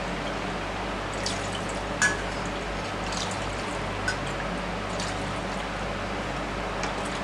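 Milk poured from a stainless-steel measuring jug into a steel pan, with a few sharp metal clinks as the jug touches the pan, the loudest about two seconds in and another about four seconds in.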